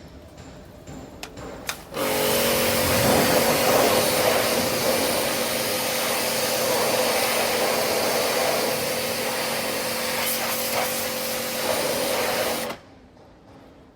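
A motor-driven machine running steadily for about ten seconds with a constant whine, switching on abruptly about two seconds in and cutting off abruptly near the end.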